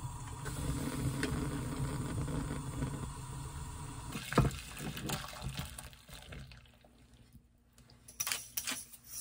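A pot of vegetable broth bubbling steadily at the boil, with a single sharp knock about four seconds in. Near the end the soup is poured from the pot into a bowl in short splashes.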